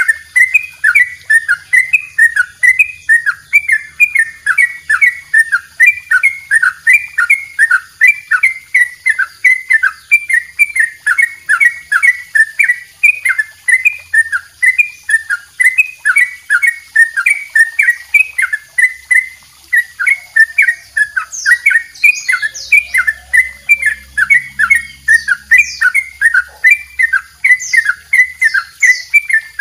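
Yellow-vented bulbul (trucukan) singing its "double roll" song: a long, unbroken run of short chirping notes repeated quickly and evenly.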